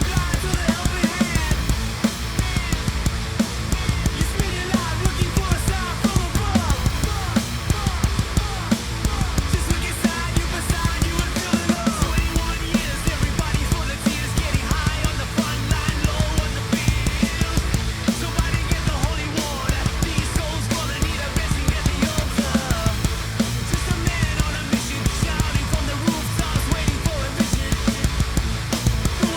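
Heavy rock band music: a full drum kit played hard, with a steady run of kick and cymbal hits, over distorted electric guitar and bass. Short pitch-bending guitar lines run over the top.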